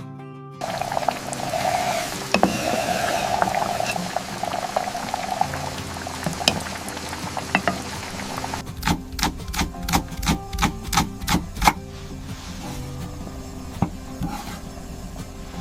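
Food sizzling in a hot pan for the first half. Then a run of about nine sharp knocks, roughly three a second, over soft background music.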